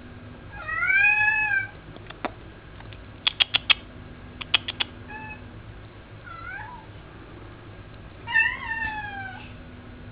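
Domestic cat meowing for food: a long meow about a second in, a couple of shorter calls in the middle, and another long meow near the end, the sound of a hungry cat begging. Between the meows come two quick runs of sharp clicks.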